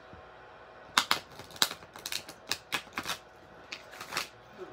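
A tarot deck being shuffled by hand: an irregular run of sharp snaps and slaps of the card stock, starting about a second in and stopping near the end.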